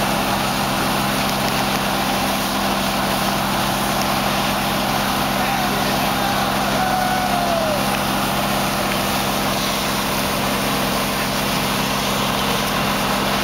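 Fire engines' diesel engines running steadily at pumping speed, with the hiss of hose streams spraying water.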